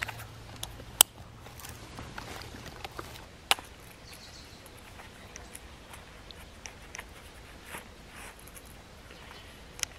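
A leather belt and knife sheath being handled: scattered small clicks and rustles, with a sharp click about a second in and another about three and a half seconds in.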